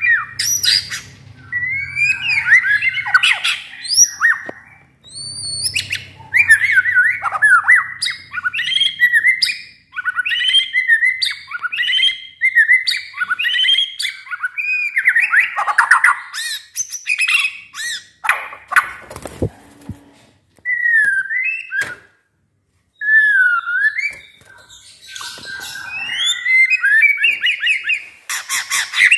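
Caged white-rumped shama in full song: a nearly continuous run of varied whistled phrases with quick rising and falling notes, broken up by harsh rasping notes. The song stops briefly about two-thirds through.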